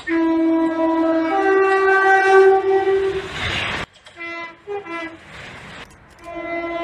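Two-tone train horns sounding in turn. A long blast steps from the low note up to the high note and cuts off suddenly. Then come a couple of short toots alternating the two notes, and near the end another blast starts on the low note.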